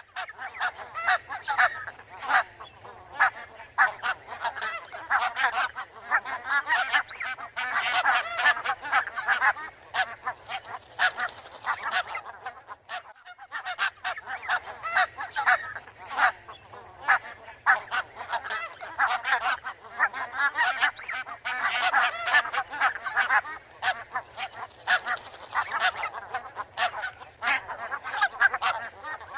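A flock of barnacle geese calling: many short, overlapping honks, dense throughout, with a brief lull about halfway through.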